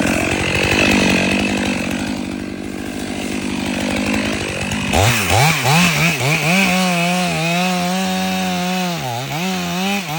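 Chainsaw running at high revs, cutting into wood. About halfway through, its pitch starts to dip and rise repeatedly.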